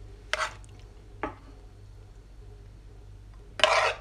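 A spoon clicking lightly against a pan and tray as chicken filling is spooned into mushroom caps: two short clicks in the first half, then a brief louder scrape near the end.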